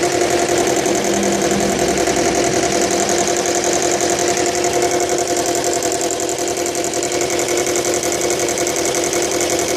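Subaru Legacy BL5's flat-four engine running steadily with a fast, even rattle throughout.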